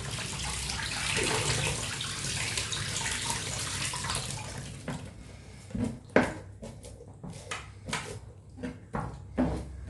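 Tap water running while a tilapia is washed and cleaned inside; about halfway through the water stops and a series of short knocks and clicks follow as the fish is handled.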